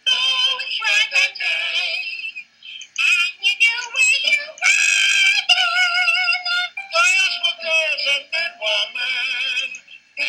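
A ringtone playing through a phone's small speaker: high, synthetic-sounding singing over music, thin and without bass, with a short break about two and a half seconds in.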